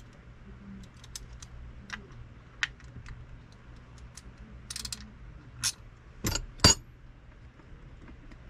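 Small metal parts of a Shimano Stella 5000XG spinning reel clicking and clinking as they are handled and worked on by hand, with a brief jingle near the middle and two sharper clicks a little later. A faint steady low hum runs underneath.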